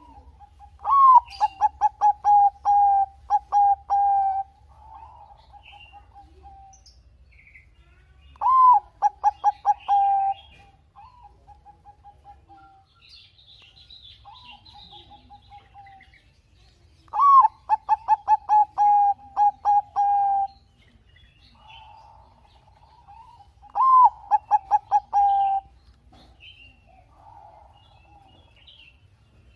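Zebra dove (perkutut) of the Thai 'Bangkok' song strain singing its cooing song four times. Each phrase opens with a sharp rising-and-falling note, then runs into a quick series of short coos. Faint chirps from other birds come between the phrases.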